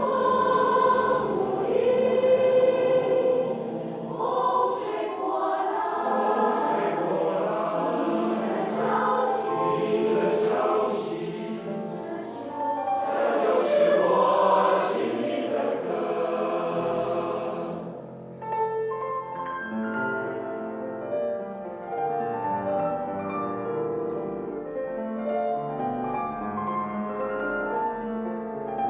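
A choir singing a song with accompaniment; the voices stop about two-thirds of the way through and a piano plays on alone.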